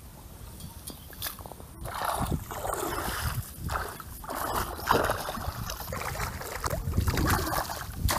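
Shallow muddy water splashing and sloshing in a series of strokes, each about half a second long, as it is churned with a hoe and bare hands. The strokes begin about two seconds in.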